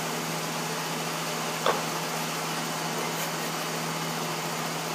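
Steady mechanical hum, with a single short knock about a second and a half in.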